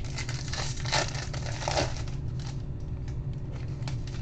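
Baseball card pack wrapper crinkling and tearing as it is opened by hand, in irregular short crackles over a steady low hum.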